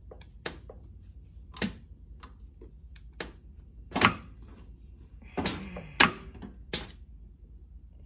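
Scattered sharp clicks and knocks, irregularly spaced and loudest about four and six seconds in, from handling an industrial walking-foot sewing machine while webbing is set under its presser foot, over a low steady hum. The machine is not yet stitching.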